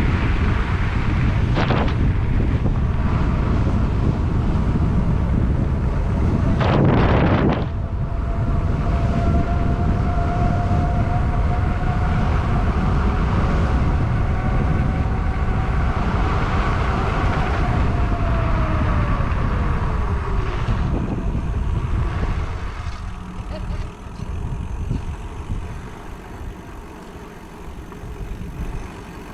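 Wind rushing over the microphone during a bike ride, with one brief louder blast about seven seconds in. A steady whine holds for several seconds, then falls in pitch as the ride slows, and the wind noise drops away after that.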